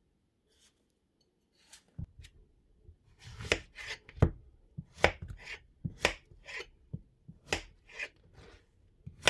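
Kitchen knife chopping a zucchini into large chunks on a cutting board: crisp knocks of the blade through the vegetable onto the board, about one to two a second, starting about two seconds in.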